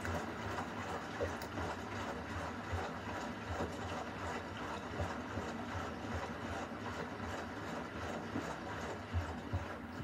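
Beko front-loading washing machine running a wash cycle: the drum turning with water sloshing and splashing inside, over a steady low rumble, with small knocks and a couple of louder ones near the end.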